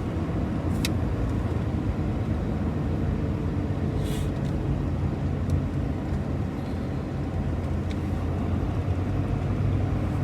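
Loaded semi-truck's engine and road noise heard from inside the cab, a steady low drone while it drives a winding mountain road, with a few brief clicks and a short hiss.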